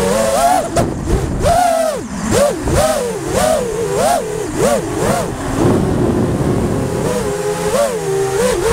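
FPV quadcopter's brushless motors whining, the pitch swinging up and down rapidly with each burst of throttle, over rushing wind and prop wash.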